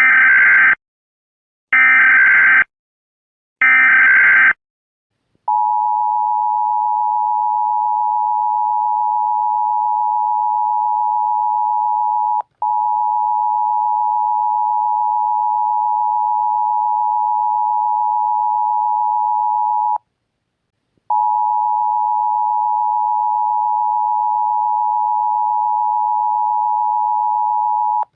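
Emergency Alert System tones: three data bursts of about a second each carrying the SAME header, followed about five seconds in by the EAS attention signal, a steady two-tone beep near 1 kHz that breaks off briefly twice. Together they announce that an emergency alert message is about to follow.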